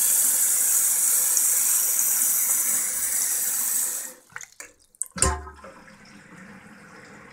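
Water tap running a steady stream into a basin already full of water, shut off about four seconds in. A few sharp clicks and one louder knock follow about a second later.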